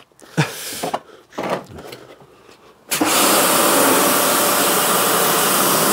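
Electric pressure washer starting up about three seconds in and running steadily, its jet spraying onto a plastic wheel arch liner.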